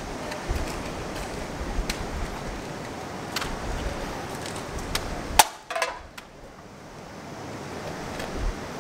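Outdoor street ambience with a low rumbling wind-like noise and a few sharp taps, such as an umbrella tip or shoes on pavement. The loudest tap is about five and a half seconds in, and right after it the background drops sharply and stays quieter.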